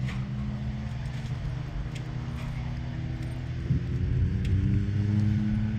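An engine running with a steady low hum, getting a little louder and higher in pitch about two-thirds of the way through, with a few light clicks.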